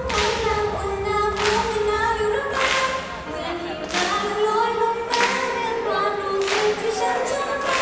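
Idol group singing a pop song live over a backing track, several voices together, with a strong beat hit about every second and a quarter.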